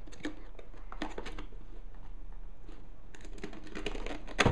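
Cardboard netbook box being handled and its lid opened: scattered light taps, scrapes and clicks of cardboard, with one sharper knock near the end.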